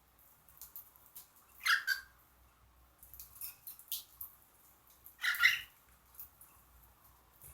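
Pet birds giving two short, loud calls, about two seconds in and again about five seconds in, with scattered faint ticks of beaks pecking at millet seed between them.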